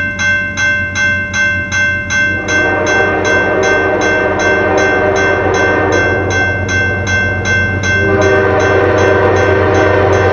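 Grade-crossing bell ringing at about three strokes a second. An approaching train's air horn comes in about two and a half seconds in, sounds one long blast, and starts a second blast at about eight seconds, with the bell still ringing underneath.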